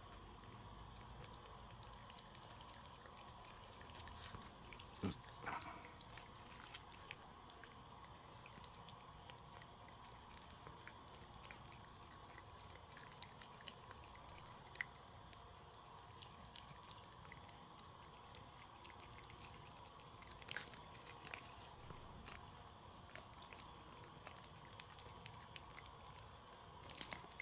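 A ginger-and-white cat licking paste from a squeeze tube of Churu treat: faint, irregular wet licking and smacking clicks, with a few louder smacks.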